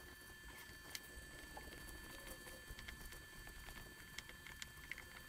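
Faint, scattered small ticks and rubbing of fingertips pressing paint protection film into an edge so that it curves down and sticks, over a faint steady high hum.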